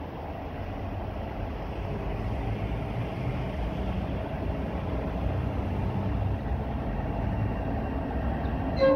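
A freight train's locomotive approaching, its low rumble growing steadily louder. Its horn starts to sound just at the end.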